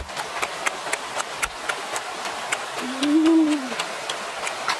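Close-up eating sounds: quick wet mouth clicks and smacks, about three or four a second, as a person eats green mango with crushed chili. A short hummed voice rises and falls near the middle.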